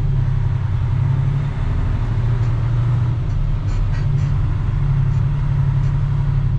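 Western Star semi truck's diesel engine running at low speed, a steady low drone, with a few faint clicks about halfway through.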